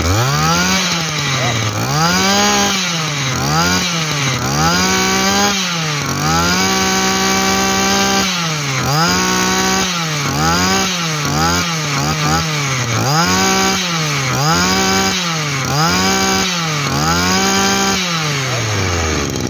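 Small two-stroke engine of a 25 cc Shindaiwa 250 brush cutter, revved up and down by hand about a dozen times in a row, with one longer hold at high revs. Near the end the revs fall away.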